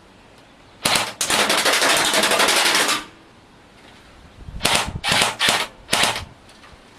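Airsoft gun firing on full auto: one long rattling burst of about two seconds, then a few short bursts a couple of seconds later.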